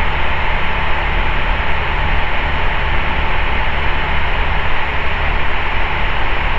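Steady in-flight cockpit noise of an Ikarus C42B microlight: the low drone of its engine and propeller under a constant rush of airflow hiss.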